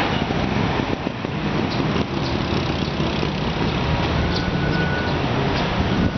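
Steady city road traffic: a continuous rumble of car and truck engines and tyre noise on a busy street.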